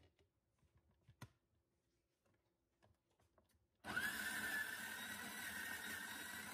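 A few faint clicks and knocks as the plastic bean hopper is handled. About four seconds in, the Bodum Bistro electric burr grinder's motor starts, with a whine that rises briefly as it spins up, then runs steadily grinding coffee beans.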